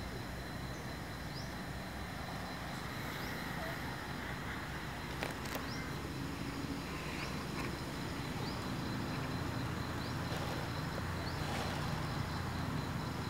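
Steady outdoor background noise: a low rumble under a thin, steady high tone, with a few scattered clicks.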